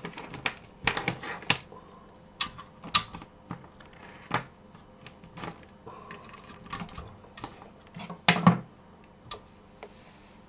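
Irregular clicks and knocks of cables and plugs being handled and pushed into their sockets, with a louder thump about eight seconds in.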